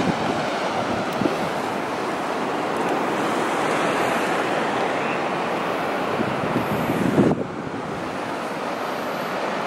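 Atlantic surf breaking and washing over granite rocks, a steady rushing noise, with wind on the microphone. The level drops a little about seven seconds in.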